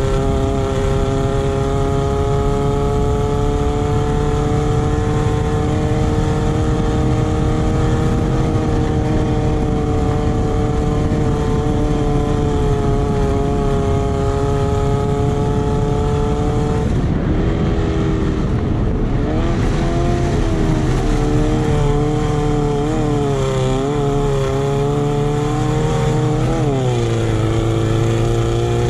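Off-road racing buggy's engine heard from on board, held at high revs at a steady pitch for about the first seventeen seconds. The revs then drop, waver with throttle lifts for several seconds and climb again near the end, over a constant rushing noise.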